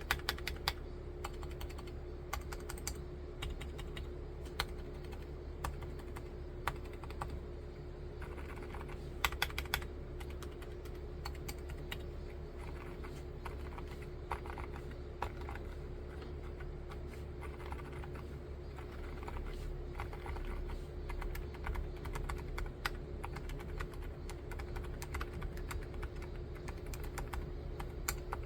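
Typing on a BRYMISTUDIO NULL75 wooden mechanical keyboard (rosewood and cherry case) fitted with silent red linear switches: a continuous, uneven run of keystrokes, some in quick bursts, over a steady low hum.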